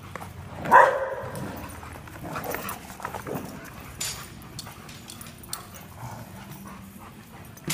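Dogs playing: one short, loud bark about a second in, followed by paws pattering and scuffling on the foam floor mats as they chase and wrestle.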